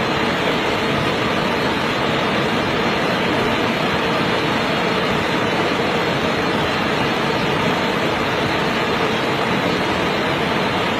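Fast-flowing river water rushing over rocks, a steady, even rush with no breaks.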